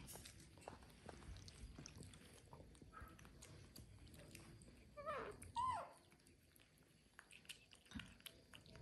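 Two short, high squeaks from a baby monkey about five seconds in, over faint scattered clicks of the monkeys picking up and chewing grilled corn kernels.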